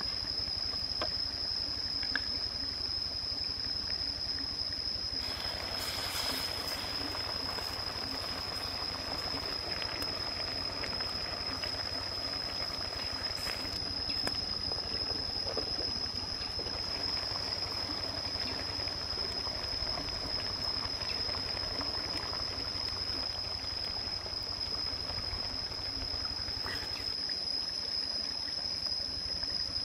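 Stream water trickling over rocks, with a steady high-pitched whine held over it and a low rumble underneath.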